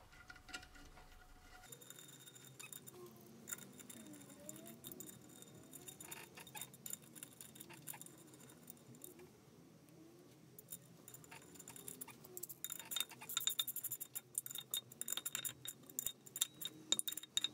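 Ratchet wrench with an 11 mm socket clicking as it runs down the bolts of a gearbox's clutch thrust bearing guide in the aluminium bellhousing. Scattered light clicks at first, then a fast run of ratchet clicks over the last few seconds.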